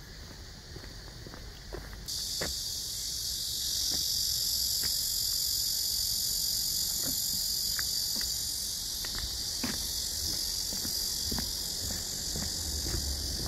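Cicadas droning in a dense, steady high-pitched chorus that starts abruptly about two seconds in, with faint footsteps ticking underneath.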